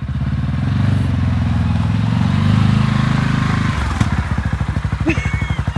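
A vehicle engine runs with an even, fast pulsing beat. About four seconds in it drops back to a lower idle, and a single click follows.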